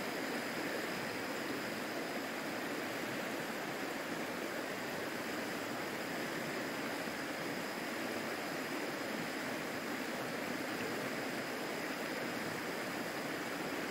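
River water rushing steadily over rocks, an even rush with no breaks, and a faint steady high-pitched tone above it.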